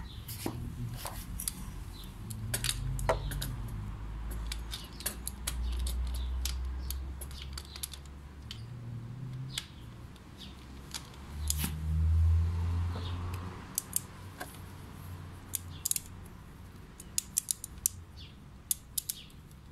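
Scattered metallic clicks of a socket ratchet and tools working the oil drain plug loose under a Yamaha Crypton X 135 scooter-motorcycle engine, with low rumbling handling noise; the clicks come thicker near the end.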